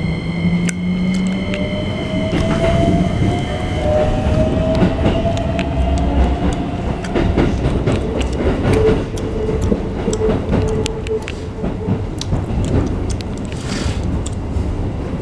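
Keikyu 1500-series electric train heard from inside the car, accelerating. Its Toyo IGBT-VVVF inverter gives steady high tones for the first few seconds and then a whine that rises in pitch, settling into a steady hum, while the wheels click over rail joints.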